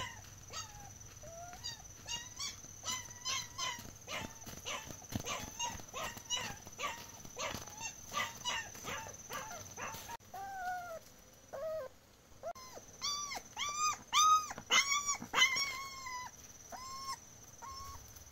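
A dog whimpering and yelping in a long series of short, high, rising-and-falling cries: a quick run of them in the first half, then a louder cluster past the middle.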